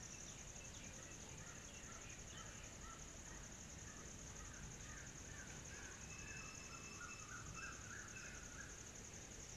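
Faint birds calling: a run of short chirps, with a held whistle about six seconds in, over a steady high-pitched buzz.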